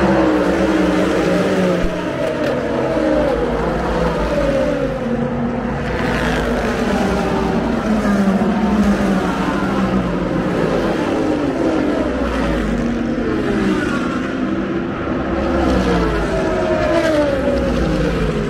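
Endurance race cars passing at speed one after another. Each engine note drops in pitch as the car goes by, and a new pass follows every couple of seconds.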